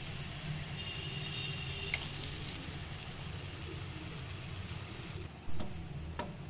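Fenugreek-leaf masala and eggs sizzling in a frying pan, with a couple of clicks and one sharp knock about five and a half seconds in.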